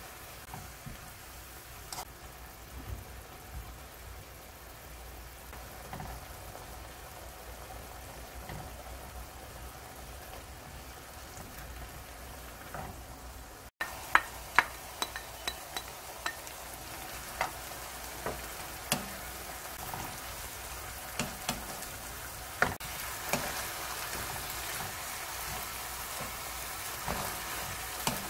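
Oyster mushrooms and vegetables sizzling in a wok while they are stirred with a wooden spatula, the seasoning liquid bubbling in the pan. About halfway through the sizzling gets louder, with sharp clacks of the spatula against the pan.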